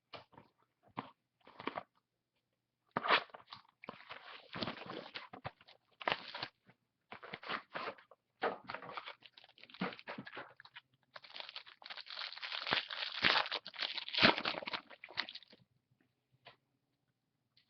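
Trading cards and their packaging being handled: irregular rustling and crinkling that is busiest and loudest in a long stretch near the end, with a few single clicks before it.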